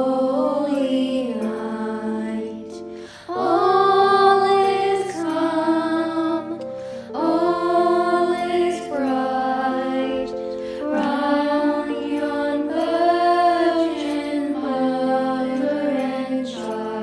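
A slow song: a solo voice holds long notes with vibrato, in phrases of about four seconds, over sustained instrumental chords.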